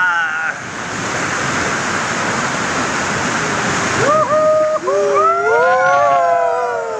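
Whitewater rapids rushing around a raft in a narrow rock gorge. From about four seconds in, rafters let out long, held shouts and cheers over the water.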